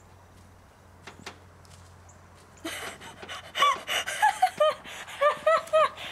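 Near quiet with a few faint clicks, then from about two and a half seconds in a run of short, high-pitched yelps, each rising and falling in pitch, about two or three a second, from a person walking barefoot on snow.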